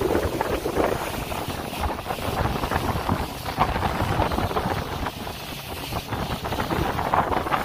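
Wind buffeting the microphone: an uneven rushing rumble with no clear tone.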